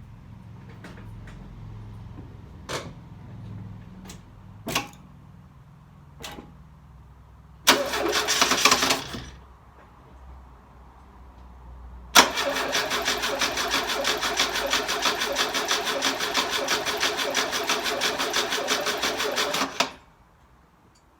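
Engine being cranked over: a short crank of about a second and a half, then a longer crank of about eight seconds with an even pulsing, and it does not catch. This is a hard start after the engine has sat for six months. A few sharp clicks come before the cranking.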